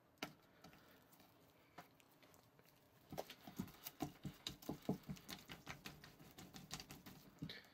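Two gel-filled rubber splat ball toys squelching and sticking as a hand squashes and kneads them together against a tabletop: a run of short sticky squelches and pops, several a second, starting about three seconds in, after a single soft click near the start.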